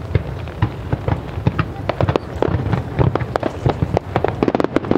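Aerial fireworks bursting and crackling in a dense run of sharp pops over a low rumble, growing busier near the end.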